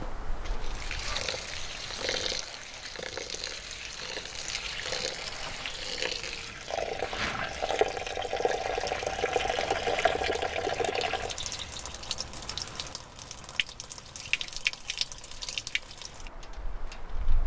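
Tap water running into an enamel bowl of rice while hands swish and rub the grains to wash them. Partway through the flow stops, leaving scattered small wet clicks and splashes of the rice being worked.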